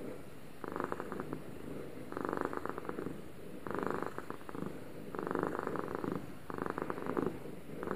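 Domestic cat purring, the purr swelling and fading with each breath, about every second and a half.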